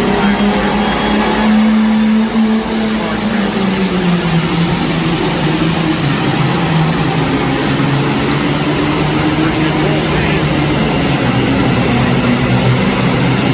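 Turbo-diesel Super Farm class pulling tractor running hard under load in an indoor arena. Its steady engine note sinks slowly in pitch over the pull, and a thin high whine rises in the first couple of seconds.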